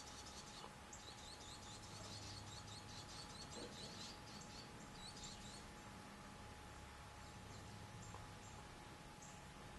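Barn swallows chirping: a fast run of short, high chirps for the first five seconds or so, thinning to a few scattered single chirps.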